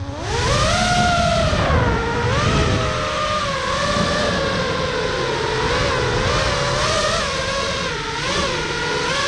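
FPV racing quadcopter's brushless motors whining, the pitch swooping up sharply at the start and then wavering up and down with the throttle, over the rumble of wind rushing past the onboard camera.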